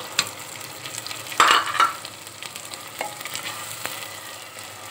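Raw boneless chicken pieces frying in hot oil in a clay handi, with a steady sizzle that swells loudly about a second and a half in. A spatula stirs the pieces, clicking against the clay pot a few times.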